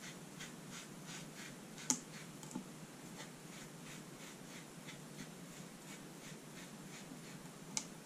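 A small sponge rubbed back and forth over gilding flakes on double-sided tape, burnishing them down: faint, rhythmic rubbing strokes, about three a second. Two sharp clicks, one about two seconds in and one near the end.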